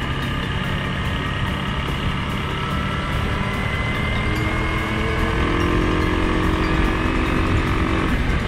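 Suzuki KingQuad 750 ATV's single-cylinder engine running under way, with a steady drivetrain whine and tyre rumble on gravel. The engine note rises and gets a little louder about halfway through.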